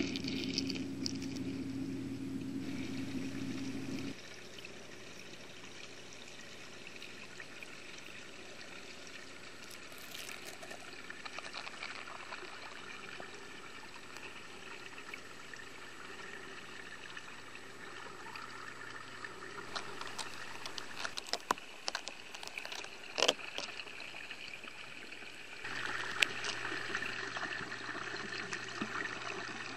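Steady trickling, flowing water heard with the microphone underwater, its level stepping down about four seconds in and back up near the end. A few sharp clicks come about two-thirds of the way through.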